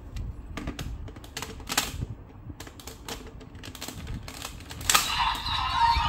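Plastic clicking and clacking as a raise buckle is fitted into a DX Desire Driver toy belt and its parts are worked, ending in a sharp click about five seconds in. Right after it, the belt's electronic sound effect starts playing.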